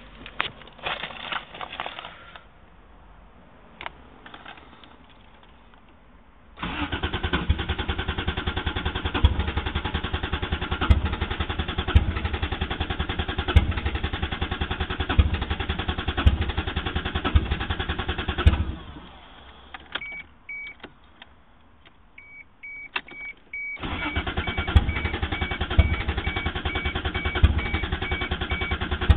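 Toyota 1JZ-GTE inline-six being cranked by its starter for about twelve seconds without catching, then cranked again a few seconds later. The engine will not restart. A repeated electronic beep starts in the pause and keeps going through the second crank.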